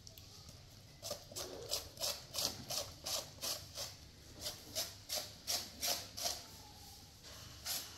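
Hand shredder scraping through a firm raw vegetable in quick, regular strokes, about three a second, starting about a second in and stopping shortly before the end.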